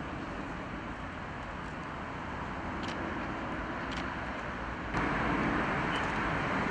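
Steady outdoor background noise like distant road traffic, with no clear single event; it turns suddenly louder about five seconds in.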